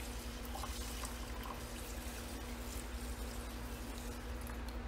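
Water poured steadily from a glass measuring cup onto dry brown basmati rice in a cast iron skillet, stopping just before the end.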